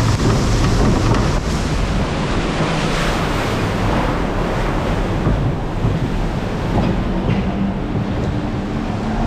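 Water rushing along a log flume channel around the ride boat, with wind buffeting the microphone. It is a steady rushing noise that eases a little toward the end.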